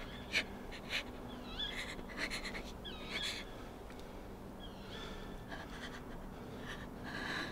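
A woman gasping and panting for breath, a series of short labored breaths spread unevenly through the moment. Faint short wavering high chirps sound in the background.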